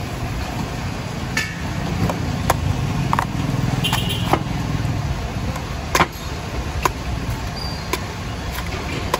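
A heavy cleaver chopping into a coconut's husk on a wooden block: about a dozen sharp, irregular chops. Underneath runs a steady low engine rumble of street traffic.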